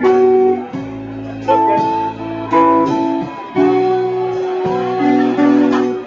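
Live guitar playing: plucked chords struck about once a second, each left to ring.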